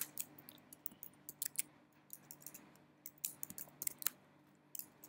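Computer keyboard keys clicking as a terminal command is typed, in irregular runs of keystrokes with a pause of about a second in the middle. A faint steady low hum lies underneath.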